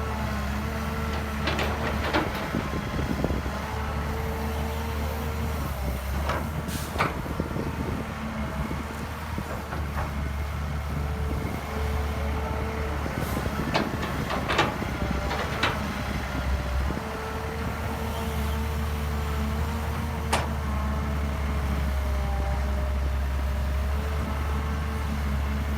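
Hydraulic excavator's diesel engine running steadily, with a whine that shifts in pitch as the hydraulics work. Sharp clanks and knocks come every few seconds, from the bucket and from dirt and rocks landing in the dump truck's bed.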